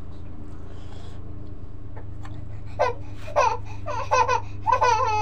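A baby fussing, with four short, high-pitched cries from about three seconds in, the last one longest and wavering downward, over a steady low hum.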